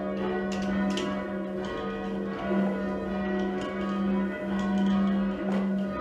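Ring of six church bells rung in turn, one stroke every third to half a second over a lingering low hum, heard from the ringing chamber below. The front three are John Rudhall bells of 1810, the back three are Mears and Stainbank bells of 1961, and the 13 cwt tenor is in F#.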